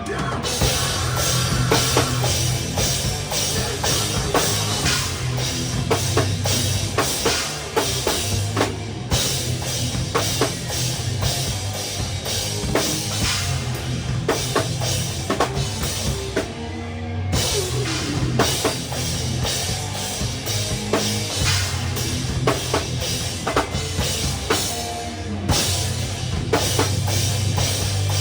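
Live rock band playing, with the drum kit prominent: dense kick, snare and cymbal hits over a steady bass line, with brief breaks about 9, 17 and 25 seconds in.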